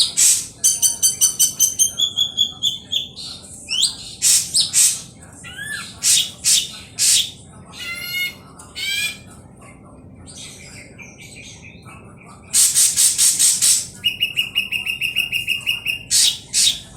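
Ashy drongo song: a varied, loud run of harsh raspy notes, rapid whistled trills and short rising and falling calls, broken by a pause of a couple of seconds before a burst of harsh chattering.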